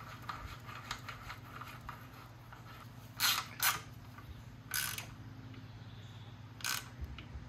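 Hand ratchet and socket tightening the hex-head bolt of an engine's upper timing chain guide: fine rapid clicking in the first couple of seconds, then four sharper, spaced-out clicks.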